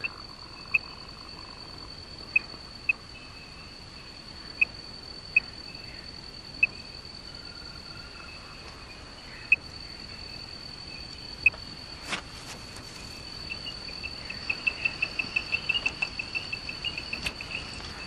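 Male Eiffinger's tree frog calling from a bamboo-stump pool: single short notes every second or two, then a fast run of notes near the end, the male's call to attract a female. A steady high insect trill runs underneath.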